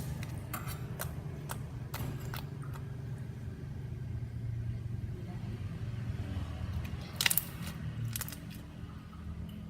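Soft slime being squeezed and stretched by hand, giving a scattering of sharp little clicks and pops, over a steady low hum.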